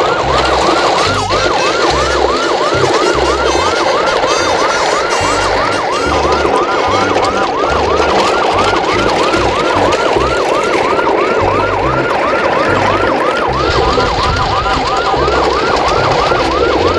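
A siren yelping rapidly, its pitch sweeping up and down about three times a second without a break, over a low pulsing thump.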